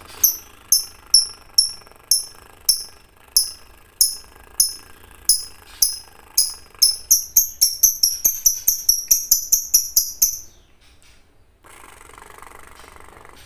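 Lovebird ngekek: a run of sharp, high chirps, each dropping in pitch, slow at first and quickening into a rapid chatter before stopping about ten seconds in.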